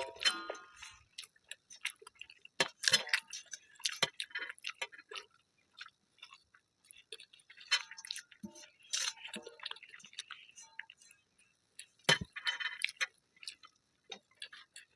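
Close-up eating sounds: irregular clicks and crunches of chewing, with a few brief ringing clinks.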